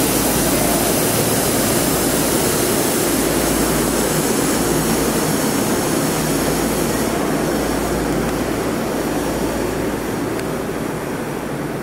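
Tokyo Metro Ginza Line train running on the underground line past the platform, a steady rumble and hiss that slowly fades. The hiss drops away about seven seconds in.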